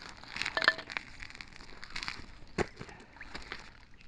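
Crunching and scraping on snowy ice with a few sharp clicks, while a small pike just pulled through a tip-up hole is handled; the loudest click comes under a second in, another about two and a half seconds in.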